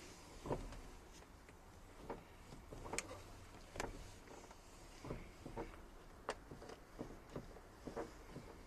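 VW T5 van door moving on its broken hinge, giving faint, irregular clicks and knocks, about one or two a second.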